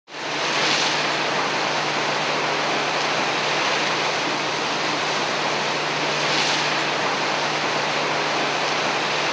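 Steady rushing noise of falling water, with a faint low hum beneath it.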